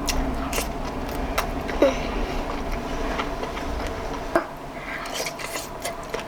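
A person eating close to the microphone: chewing and wet mouth sounds, with a few sharp clicks.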